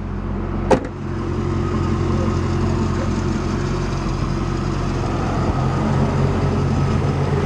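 2001 Chevrolet Camaro Z28's 5.7-litre LS1 V8 idling steadily, with a single sharp knock less than a second in.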